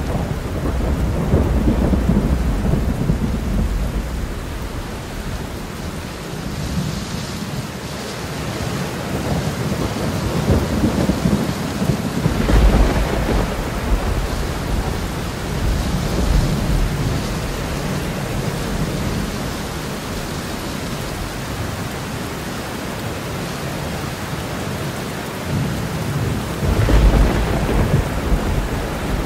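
Steady rushing noise of a ship's churning wake and wind over the deck, with low rumbling wind gusts on the microphone that swell and fade several times, loudest about halfway through and near the end.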